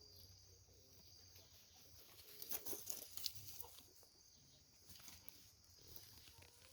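Faint, calm rural outdoor ambience: a steady high-pitched hum, with a few small rustles and clicks about two to three and a half seconds in.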